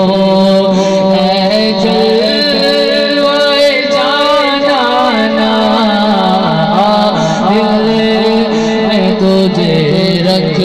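A male naat reciter singing unaccompanied into a microphone, his voice making long ornamented melodic runs, over a steady low sung drone.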